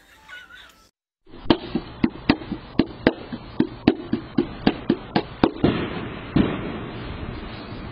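A rapid, uneven string of gunshots, about fifteen sharp bangs a few a second, the last one about a second after the rest. They are picked up by a security camera's microphone, which makes them sound thin and band-limited, with a steady hiss after them.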